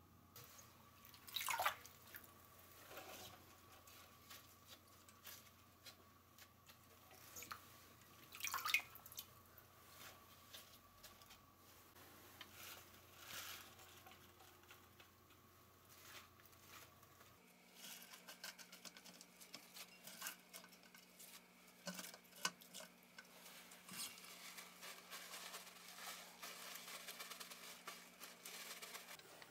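Faint dripping and splashing of water as wet baby salad leaves are lifted out of a bowl of water and drained in a mesh sieve, with two louder splashes near the start. In the second half comes a soft, crackly rustle of paper towels as the leaves are patted dry.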